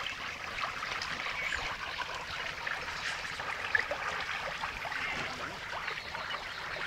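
Steady fizzing water noise from a pond surface, full of many small splashes and ticks.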